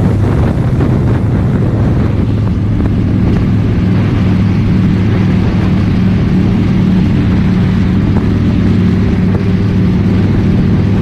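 Harley-Davidson Dyna Street Bob's V-twin engine running at a steady cruising speed on the road, with a steady rush of wind and road noise over it.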